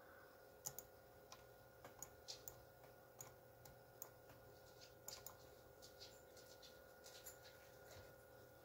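Faint, scattered clicks of a computer mouse, about fifteen in all at irregular spacing, over a faint steady electrical hum.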